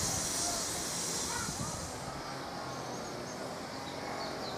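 Outdoor ambience: a high hiss fades away over the first two seconds, leaving faint bird chirps and a low murmur of distant voices.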